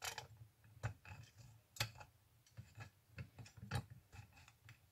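Faint, irregular metallic clicks and taps as small bolts are handled and started by hand in a moped's drilled brake disc and its hub adapter.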